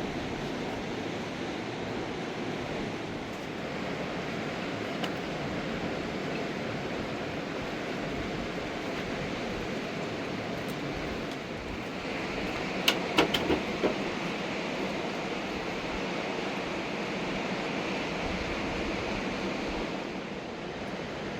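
Mountain river rushing steadily. About halfway through, a quick cluster of four or five sharp clicks cuts through it.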